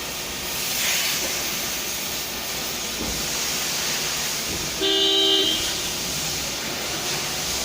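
Steady hiss of a steam vacuum cleaner's steam jet, with a short horn toot about five seconds in.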